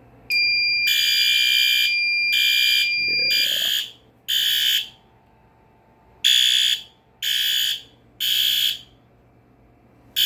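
A fire alarm horn on the suppression panel's notification circuit sounds in repeating groups of three short blasts with a pause between them, the temporal-three evacuation pattern of a panel in alarm after a smoke-detector zone is tripped. For the first three seconds or so, a steady high beep from the panel's built-in sounder plays over it, then stops.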